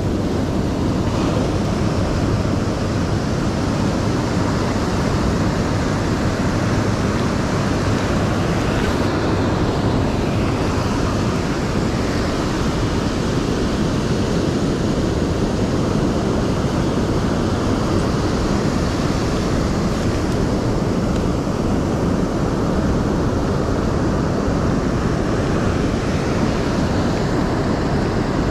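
Steady rush of ocean surf mixed with wind buffeting the microphone.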